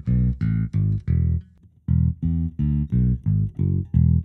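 Ample Sound P-Bass virtual Fender Precision Bass playing a bass line of short plucked notes, with a brief pause about one and a half seconds in.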